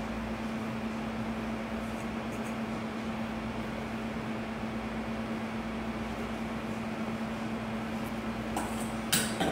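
Steady machine-like room hum with a constant low tone, of the fan or air-conditioning kind, with a couple of faint ticks and one sharp click near the end.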